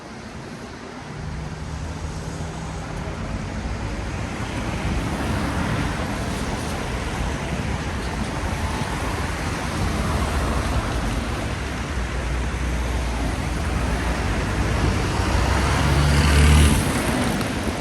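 Road traffic passing on a rain-wet city street: a steady hiss of tyres with low engine rumble, growing louder and peaking as a vehicle passes close near the end.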